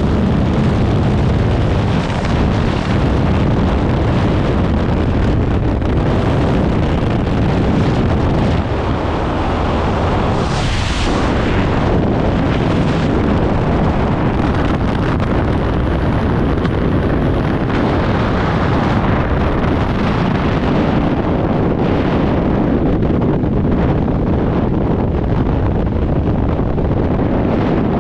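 Caterpillar D2 crawler tractor's diesel engine running loud and steady, with wind buffeting the microphone and a brief brighter hiss about eleven seconds in.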